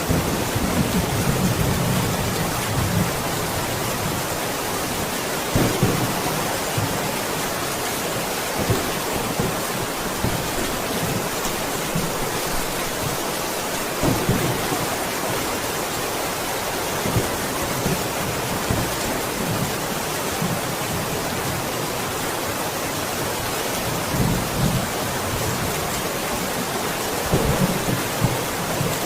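Steady, dense rain falling, with low rumbles of thunder now and then, strongest in the first few seconds and again near the end.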